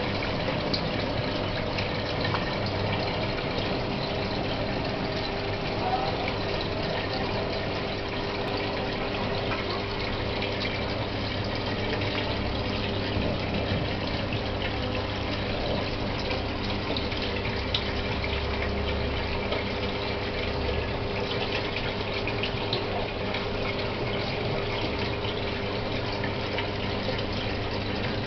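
Aquarium filter or pump running: a steady splash and trickle of water over a constant low hum.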